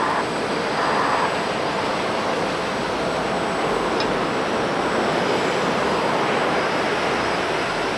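Jet aircraft engines running at an airport: a steady, even rushing noise with no distinct events.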